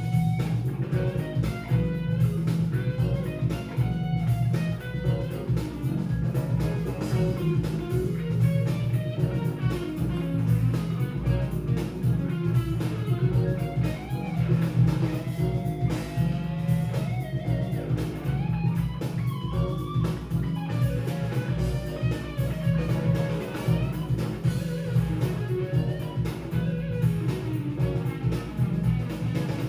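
Jazz-fusion band playing, with a guitar leading in bending, gliding lines over bass and drums.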